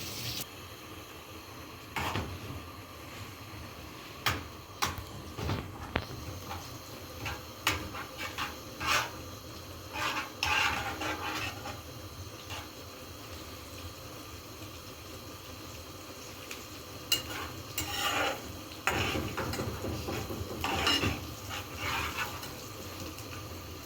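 Kitchen utensils clinking and scraping against dishes and a pan, in scattered sharp knocks with short bunched runs of clatter.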